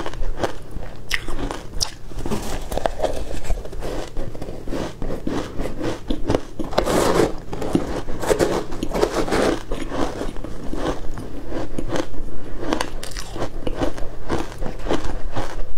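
Close-miked biting and crunching of ice dusted with matcha powder: a dense, continuous run of crackly crunches with no pauses, heaviest in the middle.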